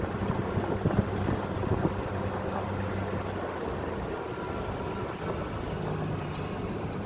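Vehicle engine running steadily with a low hum, over a rough rumble with a few low knocks near the start.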